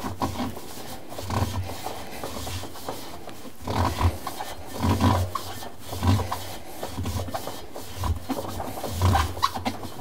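Gloved hands rubbing and scrubbing the rubber door seal of a front-load washing machine to work mold off it, in uneven strokes about once a second in the second half.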